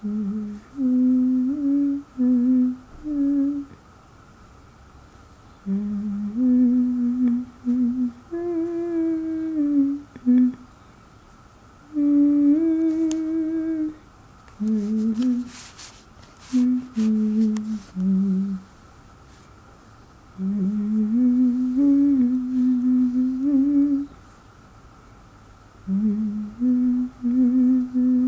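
A woman humming a slow, wandering tune in short phrases with pauses between them, with a few brief clicks around the middle.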